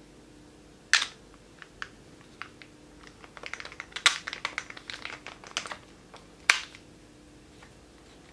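Plastic and metal clicks from the chuck head of a Festool TI 15 impact driver being handled. There is a sharp snap about a second in, a run of quick, irregular clicks over about three seconds as the collar is gripped and turned, and another sharp snap near the end.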